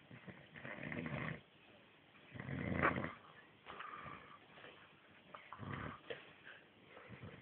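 Snoring: a string of rasping sleep breaths, the loudest about three seconds in, with weaker ones after it.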